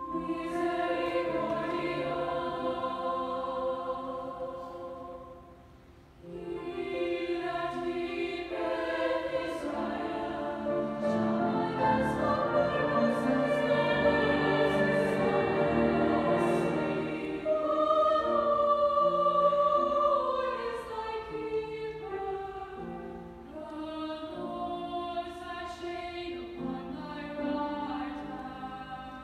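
Treble choir of upper voices singing sustained chords, with a brief break about six seconds in, then swelling louder in the middle before easing off.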